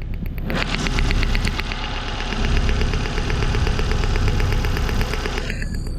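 1996 Toyota Corolla's 1.8-litre 7A-FE four-cylinder engine idling with a misfire on cylinder 1, over a rapid, even run of sharp ticks that starts about half a second in and stops near the end: a worn spark plug wire arcing to ground.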